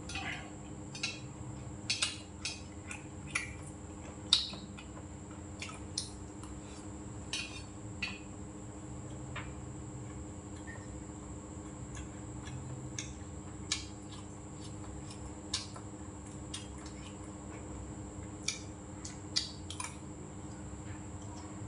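Wooden chopsticks clicking and scraping against a stainless-steel rice bowl while eating: irregular sharp clicks, thickest in the first half and again near the end.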